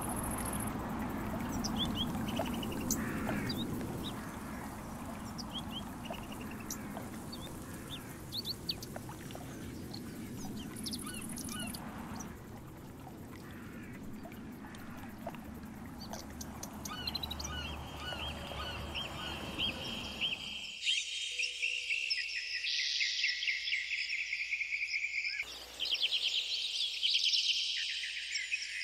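Outdoor ambience of birds calling and chirping over a low rumble. About 21 s in the rumble stops abruptly and a dense, high chirping chorus takes over.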